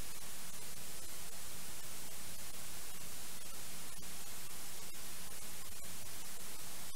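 Steady static hiss, the noise of an analog FPV video receiver's recording, with a few momentary dropouts. No drone motor or propeller sound stands out from it.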